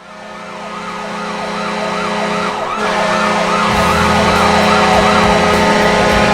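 Washington Capitals' arena goal horn blowing a steady low blast while a siren wails up and down over it, about two to three sweeps a second. The sound builds up over the first couple of seconds, and near the end the siren swings into a long rising wail.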